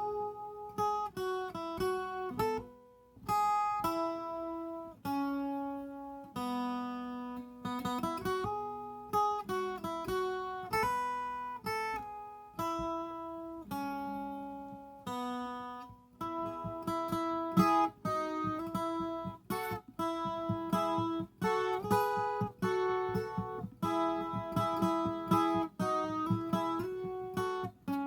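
Viola caipira (Brazilian ten-string guitar) playing a solo melody of a film theme, plucked notes and double-stops ringing out one after another.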